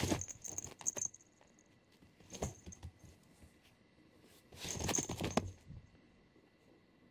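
A cat pouncing and scampering across a woven floor mat while batting a small plastic bottle cap, heard as three bursts of quick clicks and scuffs: about a second at the start, a short one near two and a half seconds in, and about a second near five seconds in.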